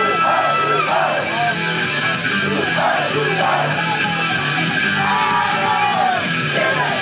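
Loud live rock-style music with singing and yelled vocals over a steady, repeating bass line.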